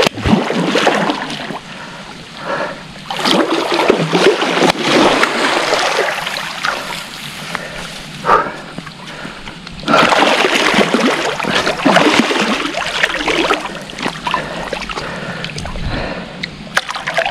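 Hooked wels catfish thrashing and splashing at the surface in shallow water, in irregular bursts: once right at the start, again from about three to six seconds in, and again from about ten to thirteen seconds in.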